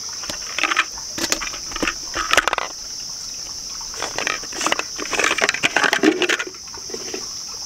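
Hard plastic parts of an electric paint sprayer knocking, clicking and scraping in a handful of short bursts as the paint cup is fitted on and a spare cup is rummaged in. A steady high chirring of crickets runs behind.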